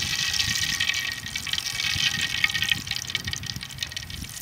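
Hot cooking oil sizzling in a metal pan, a steady dense crackle.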